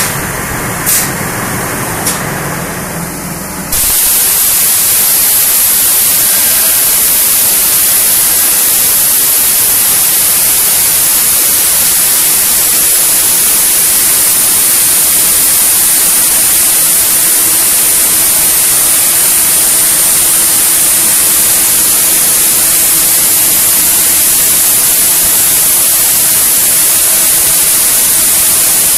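CNC machine at work on an aircraft wing rib: a machine running, with two sharp clicks, then about four seconds in a loud, steady hiss like an air or coolant spray starts suddenly. A faint steady whine stays underneath the hiss.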